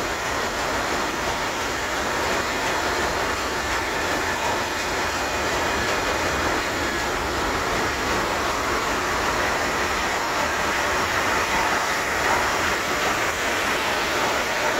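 Engine-room noise of a 12,740 hp Burmeister & Wain / MAN two-stroke slow-speed marine diesel running at slow speed: a steady, dense mechanical din over a low rumble.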